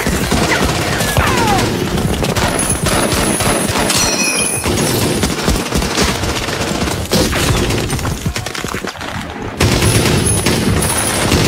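Dense, continuous battlefield gunfire: rapid small-arms and machine-gun shots overlapping with booms. The firing dips briefly near the end, then comes back loud.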